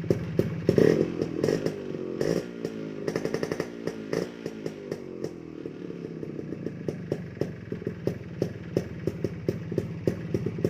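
Kawasaki HD3 motorcycle engine idling with a distinct, choppy exhaust beat. The throttle is blipped briefly twice in the first few seconds, then the revs fall back to idle.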